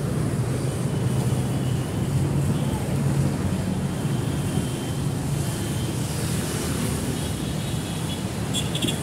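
Steady rumble of road traffic, cars and taxis moving along a busy roadway close by.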